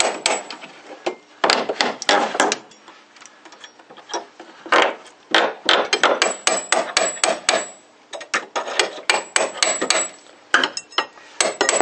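Steel hammer tapping a flat bar to pry nails out of wooden deck boards. The taps come in quick runs of metal-on-metal strikes with short pauses between them.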